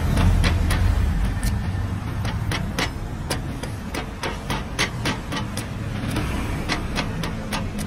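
Steel cleaver chopping and shaving the husk of a young coconut against a wooden block: quick, irregular chops, about three a second. A low steady rumble runs underneath, strongest in the first second.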